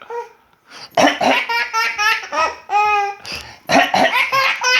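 A small boy laughing hard in quick bursts of high-pitched giggles, starting about a second in and again near the end after a short pause.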